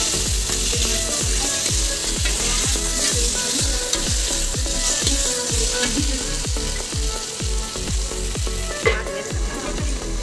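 Sliced potatoes sizzling in oil in a steel kadhai, stirred and scraped with a metal spatula. A steel plate is clanked down over the pan as a lid near the end, and the sizzle turns duller. Background music with a steady beat runs underneath.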